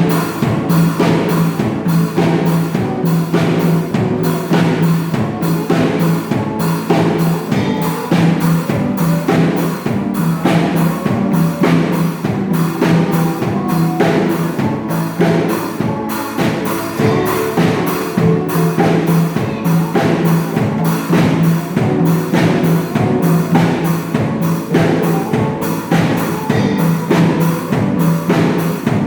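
A school pop band with drum kit and bass playing an upbeat song, the drums keeping a steady, even beat.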